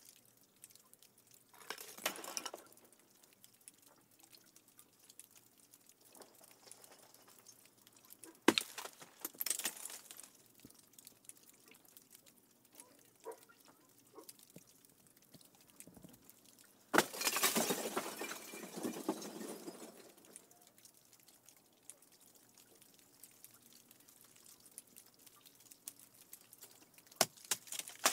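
Candle ice crystals clinking and tinkling like glass. There are a few sharp single clicks, and a longer crackling jingle lasting about three seconds past the middle.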